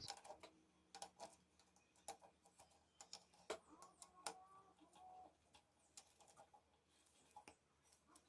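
Faint, scattered small clicks and ticks, the loudest about three and a half and four seconds in, as the wire terminals on a motorcycle starter solenoid switch are tightened; faint bird chirps behind them.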